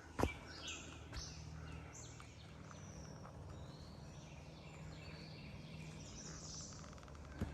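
Small woodland birds chirping in short high calls, mostly in the first couple of seconds and again later, over a faint steady low hum. A single sharp knock, like a footstep, comes just after the start.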